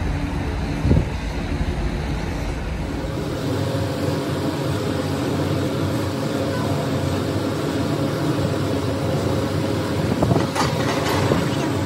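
A steady mechanical drone with a constant hum runs throughout. Heavy iron mold weights are set down on sand molds with sharp clunks: one about a second in and several near the end.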